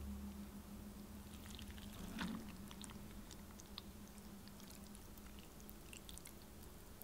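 Quiet wet handling sounds: soaked gelatin sheets are squeezed out and dropped into a pot of warm chocolate cream, with a soft plop about two seconds in. Faint small clicks and scrapes follow as a silicone spatula begins stirring in the pot, over a low steady hum.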